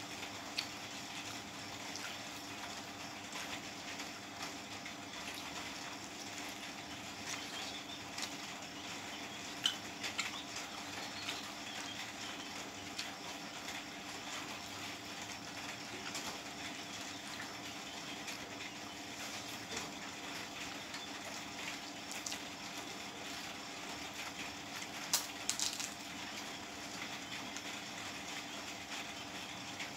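Eating by hand: fingers squishing and mixing rice with chicken curry on a plate, and chewing, heard as scattered small wet clicks and smacks, a few sharper ones about ten seconds in and again about twenty-five seconds in. A steady low hum runs underneath.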